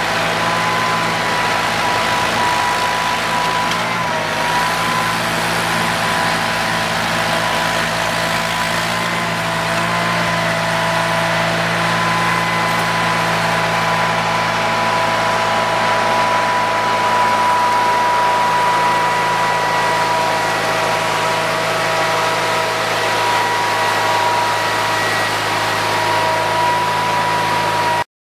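Onan twin-cylinder engine of a Sears garden tractor running steadily, with a steady high whine over the engine note; the sound cuts off abruptly near the end.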